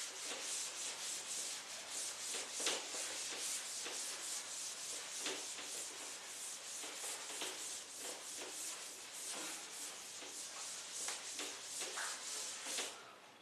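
Continuous rubbing and scratching on a writing surface, in quick repeated strokes a few times a second, as of a teacher writing on or wiping a board.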